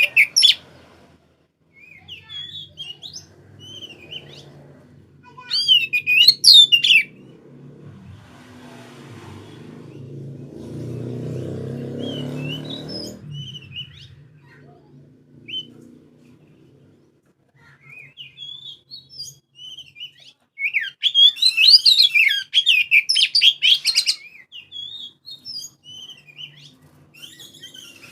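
Oriental magpie-robin (kacer) singing loud bursts of varied, fast-changing whistled phrases, about six seconds in and again near the end, with short scattered notes between. A low rumble swells and fades in the middle.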